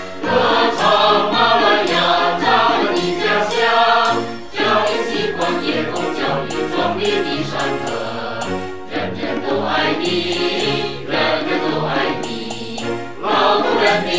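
Background music: a choir singing over instrumental accompaniment with a steady beat.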